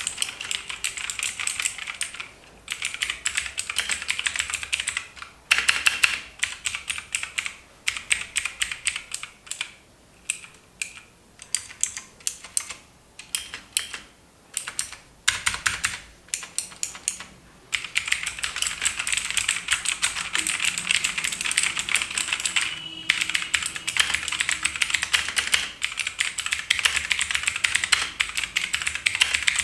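Motospeed K875 RGB mechanical keyboard being typed on, with crisp keystrokes. It opens with two short runs of fast typing, then single keys and small clusters pressed about a second apart through the middle, then steady fast typing for the last dozen seconds.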